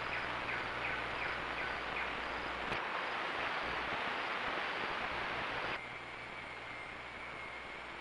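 Steady outdoor ambient hiss with a run of faint, short, repeated chirps, about two a second, in the first two seconds. About six seconds in the sound cuts abruptly to a quieter ambience carrying a steady high whine.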